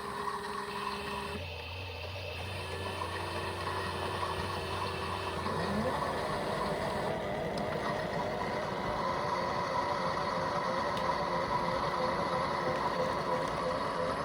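Several toy washing machines running at once: small electric motors turning the drums, giving steady whines and hums, with a warbling tone and a short rising whine about four seconds in.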